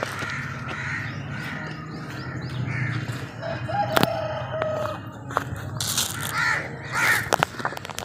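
Crows cawing again and again, with a rooster's long crow about three and a half seconds in. A single sharp snap cuts through about four seconds in.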